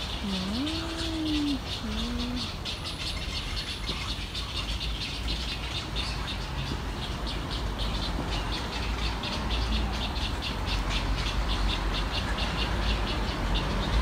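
Birds in a tree canopy keeping up a rapid, high rattling chatter, with one low call that rises and falls about half a second in. A low rumble builds after about nine seconds.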